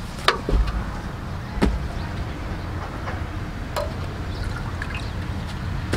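A knife cutting and scraping at a cow's head in a metal pot, with three sharp knocks of the blade near the start, about a second and a half in, and near four seconds in, over a low steady rumble.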